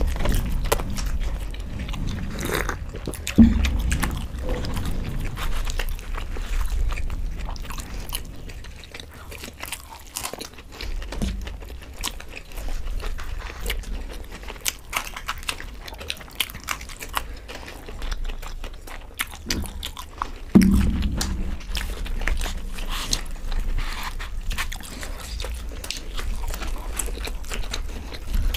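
Close-miked eating: two people chewing and biting into radish-stuffed paratha with potato-fenugreek curry, lots of small wet mouth clicks and smacks. Two louder sharp thumps stand out, about three seconds in and again about twenty seconds in.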